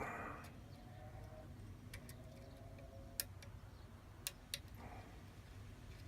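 Faint, scattered sharp clicks of a hook pick working the pin tumblers of a lock cylinder under light tension, a few ticks spaced about a second apart with a quiet scrape between them. The cylinder holds serrated pins, which click as the pick lifts them.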